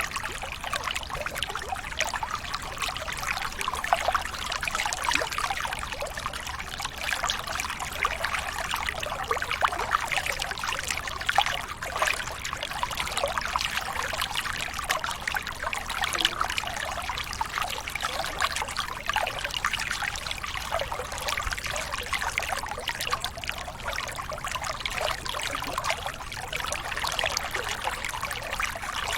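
Running water trickling and splashing steadily, a continuous bubbling rush with many small splashes.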